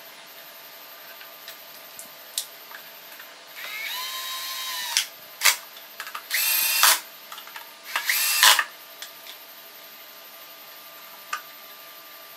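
Cordless drill-driver running in three short bursts, about four, six and a half and eight seconds in, driving the screws that fasten the blower motor into the plastic car air-conditioning blower housing. A few sharp clicks from the screws and plastic parts come between and after the bursts.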